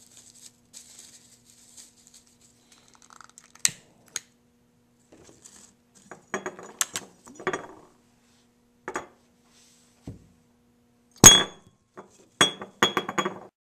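Glass round-bottom flask handled on a hard tabletop: scattered clinks, taps and short rattling clusters, with one sharp, loud knock about 11 seconds in. A faint steady hum lies underneath for most of it.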